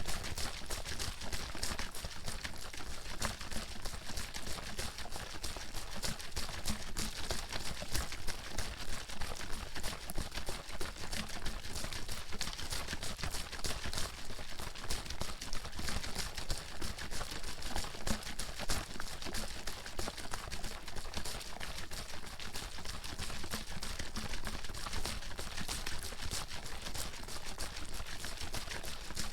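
Water bottle being shaken hard and continuously, the water sloshing and slapping inside in a fast, steady, unbroken rhythm.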